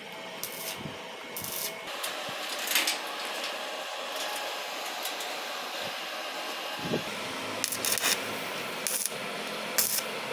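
Stick welding on a steel square-pipe grill: the electrode's arc crackles and hisses, flaring in several short bursts.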